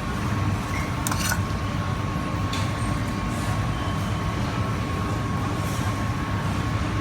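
Steady low mechanical rumble with a thin constant whine above it, and a few light clicks and clinks, about a second in and again near the middle.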